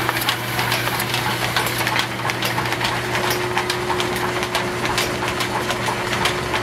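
Belt-driven wrought iron line shaft with cast iron pulleys running under electric motor power: a steady hum with a rapid, uneven ticking from the turning shafting and belts.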